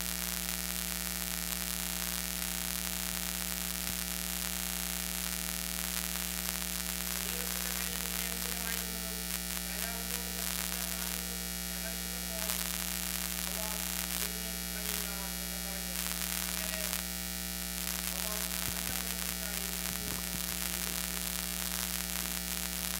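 Steady electrical mains hum with a constant hiss of static from the sound system, with faint, indistinct voices in the middle.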